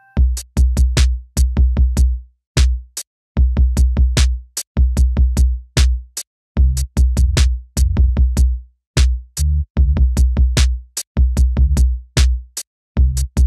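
Background electronic music with a drum-machine beat: a deep kick drum under sharp, quick hits, played in short runs with brief breaks.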